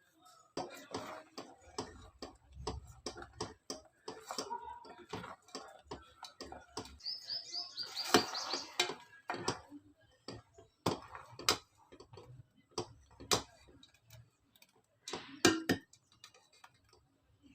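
Kitchen utensils clicking and knocking irregularly against cookware. A short run of high chirps comes about seven seconds in.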